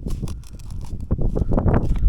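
Scraping and crunching of soil as a small hole in ploughed ground is dug out around a metal-detector target, with wind rumbling on the microphone.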